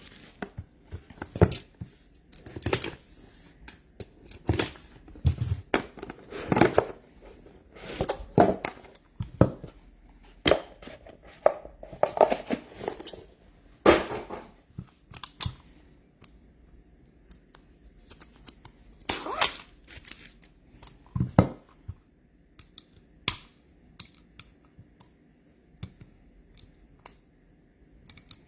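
Trading-card packaging being torn open and cards handled: irregular tearing, crinkling and clicks, busy for the first half and thinning to scattered light ticks later.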